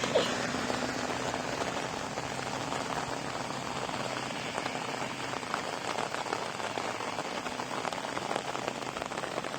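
Heavy rain falling steadily, with many separate drop hits.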